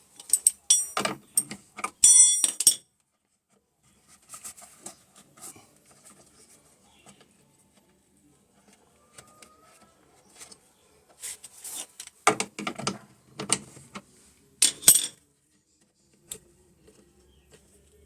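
Small metal objects clinking and rattling, with handling knocks in scattered bursts. There are ringing metallic clinks about one to three seconds in and a louder cluster of knocks near the end.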